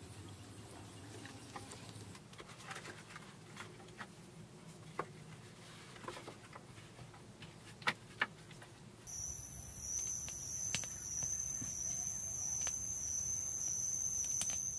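Quiet ambience with scattered small clicks and taps, then about nine seconds in an abrupt change to forest ambience with a steady high-pitched insect drone.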